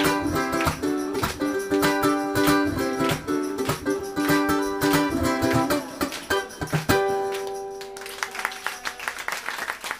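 Solo ukulele playing the closing bars of a tune in a steady strummed rhythm, ending on a final chord about seven seconds in that rings out. Audience applause starts about a second later.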